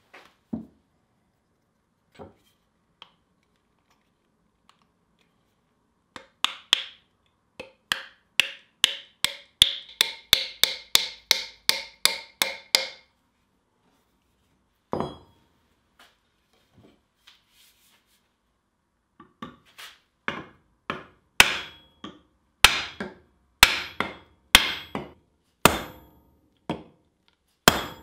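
Blows seating a hand-forged steel pickaroon head onto its wooden handle. First comes a quick run of ringing taps, about three a second. After a pause there is a single blow, then louder, evenly spaced blows about one a second.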